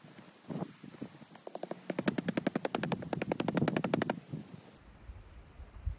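A fast rattle of sharp clicks, about a dozen a second for close to three seconds, from the tent's fittings being worked during pitching, after a brief rustle of tent fabric.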